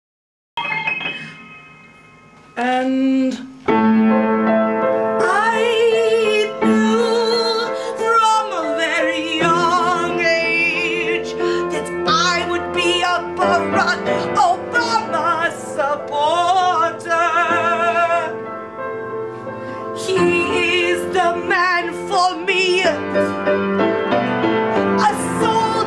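Music: a woman singing with vibrato in an operatic style over piano or keyboard, starting about half a second in.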